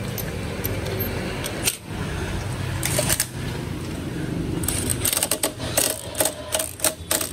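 Cordless impact driver with a socket running a bolt on the motorcycle frame. It rattles in several short, rapid bursts in the second half.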